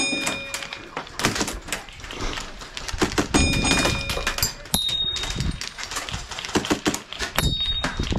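Wolverine MTW high-pressure-air airsoft rifle firing in several rapid bursts, each a quick run of sharp clicks.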